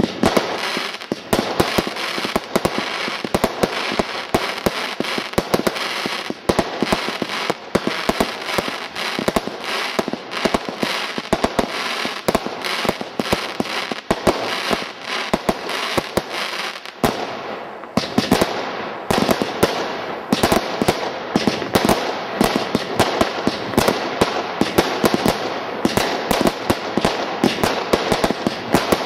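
Total Turmoil 256-shot single-ignition firework barrage cake firing continuously: rapid sharp bangs of bursting shots over dense crackling. There is a brief drop about seventeen seconds in before the shots pick up again.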